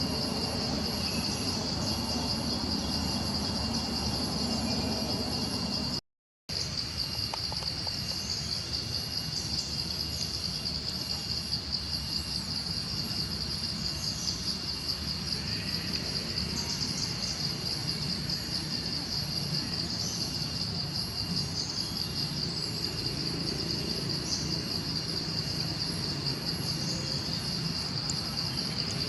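Steady high-pitched insect chorus, a fast pulsing trill that runs on without pause except for a half-second break to silence about six seconds in.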